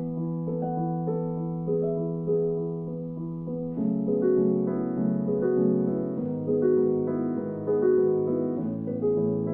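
Background music on piano: a slow stepwise melody over held chords that change every few seconds.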